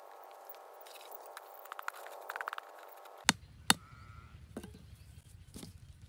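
A small hand blade scraping and chopping dry sandy earth, a cluster of short scraping strokes in the second and third seconds. About three seconds in, two sharp knocks half a second apart, then a few softer taps.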